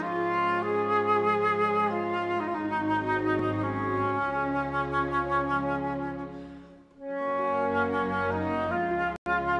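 Instrumental background music of held, sustained notes. It fades out about seven seconds in, comes back, and drops out for an instant near the end.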